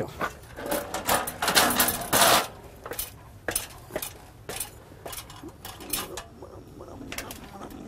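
Aluminium stepladder clanking and rattling as it is moved into place and climbed, with a dense burst of clatter about two seconds in. After that come irregular clicks and knocks of boxes being handled on a steel shelf.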